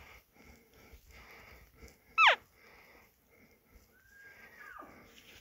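Elk calls: a loud, short cow-elk mew that slides steeply down in pitch about two seconds in. Near the end comes a fainter, longer high whistle that holds its pitch and then drops off sharply, like the whistle of a bull elk's bugle.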